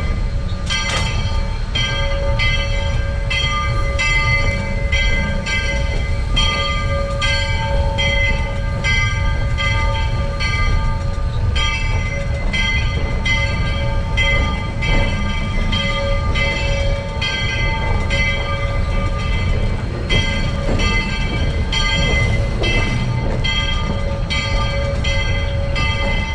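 Narrow-gauge steam locomotive moving off at low speed, its bell ringing steadily about one and a half strokes a second over the low running rumble of the engine.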